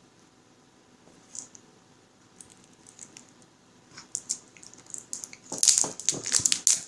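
Plastic shrink wrap on a deck of cards, picked at with a fingernail and worked loose. First a few faint scratches and clicks, then loud crinkling and crackling of the plastic from about five and a half seconds in.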